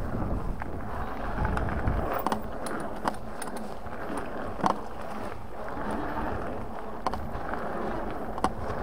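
A Lankeleisi X3000 1000 W e-bike being ridden over a packed-dirt and gravel track. Its tyres make a steady rolling rush, broken by sharp clicks and rattles from the bike over the bumps, the loudest a little under five seconds in.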